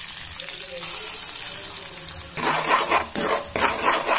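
Onion paste sizzling in hot oil in a kadai, then stirred with a metal spoon. A little past halfway, a run of quick scraping strokes begins, about four a second.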